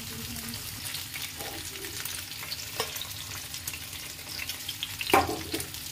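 Paneer cubes shallow-frying in hot oil in a pan, a steady crackling sizzle. There are a few small clicks through it and one louder knock about five seconds in.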